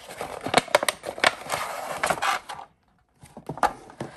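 A small cardboard product box being opened and handled by hand: sharp knocks and clicks with scraping and rustling of cardboard, a brief break, then a few more clicks.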